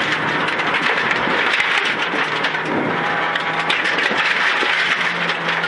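Rally car running flat out on a gravel stage, heard from inside the stripped, roll-caged cabin: a steady, loud engine note under a constant rush of tyre and gravel noise, with stones pattering against the underbody. The engine note rises slightly about five seconds in.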